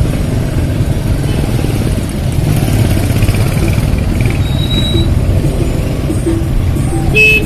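Motorbike engines running in slow, crowded street traffic: a steady low rumble, with a short beep near the end.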